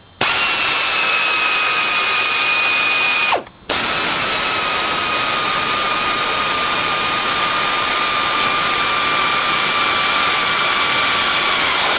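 Pneumatic air tool running with a steady hissing whine as it drives self-tapping engine mounting bolts up through the tractor frame. It runs in two bursts: about three seconds, a short stop, then a long run. Each burst slows slightly as it ends.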